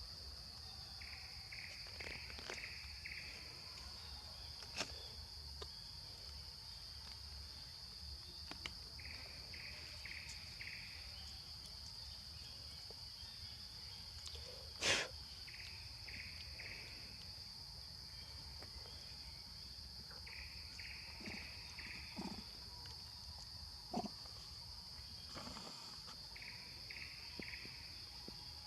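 Faint outdoor insect chorus: a steady, high, shrill drone, with short runs of about five quick chirps coming back every several seconds. A few faint knocks stand out, the loudest about 15 seconds in.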